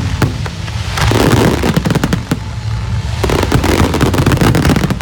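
Fireworks going off in rapid succession: a dense run of sharp cracks and bangs about a second in and again from about three seconds on, over a steady low rumble.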